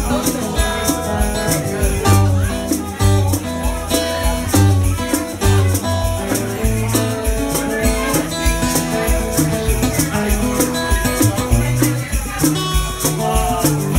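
Acoustic guitar playing an instrumental passage over a steady beat of cajon thumps, with a sharp, even rattle ticking along in time.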